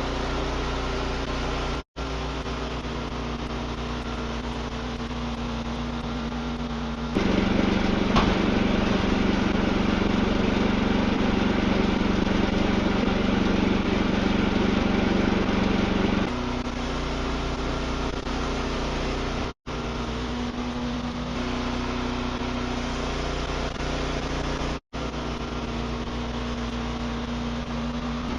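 Wood-Mizer portable sawmill running steadily. It gets louder, with a heavier low hum, for about nine seconds in the middle. The sound drops out for an instant three times.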